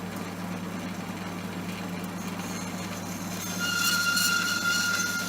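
A power saw runs with a steady hum and cuts through a strip of plastic pipe. Past the middle it grows louder, with a high thin squeal as the blade bites into the plastic.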